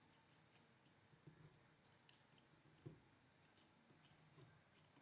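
Near silence with a dozen or so faint, scattered clicks of small parts or a tool being handled during assembly.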